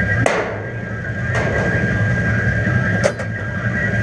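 A steady low drone with a thin, steady high tone over it, broken by three sharp knocks.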